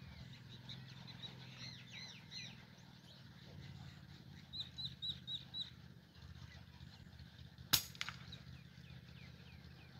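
A single sharp gunshot about three-quarters of the way through, with a fainter second crack a moment after it. Before it, small birds chirp: a few high notes about two seconds in and a quick run of five near the middle, over a low steady hum.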